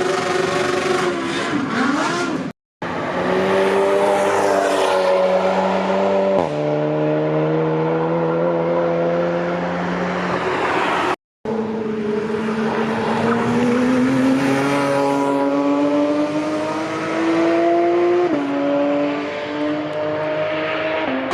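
Race car engines under hard acceleration. The pitch climbs through the revs and drops sharply at each upshift, about six seconds in and again near the end. The sound is split into several clips by two brief silent gaps.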